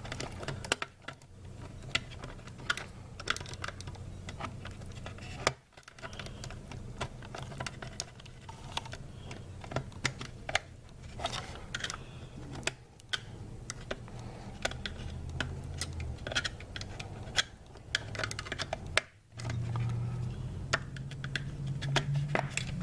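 Irregular small clicks and scrapes of metal and plastic as an LED headlight bulb's metal tangs are worked into the recesses of the headlight fixture with a screwdriver, over a steady low hum.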